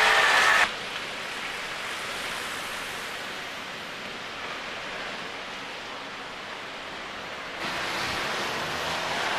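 A passing motor vehicle's engine cuts off abruptly under a second in, leaving a steady, even hiss of outdoor street background noise; the noise steps up a little louder near the end.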